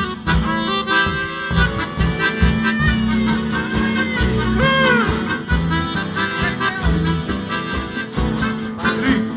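Live country band playing an instrumental introduction: a lead melody with bending notes over a steady bass rhythm, before the vocals come in.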